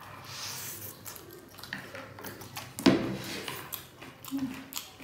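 People slurping and chewing chow mein noodles, with scattered small clicks and a louder slurp about three seconds in.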